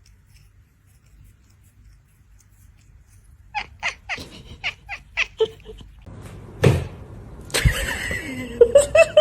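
A cat meowing in a quick series of short calls, about three a second, followed by two loud thumps.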